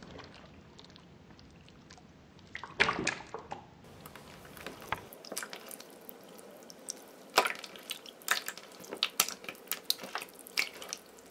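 Hands squeezing and kneading a mass of jelly-like red slime, giving wet squelches and sticky pops. It is quiet at first, with a short cluster of squelches about three seconds in, then a busy irregular run of pops through the second half.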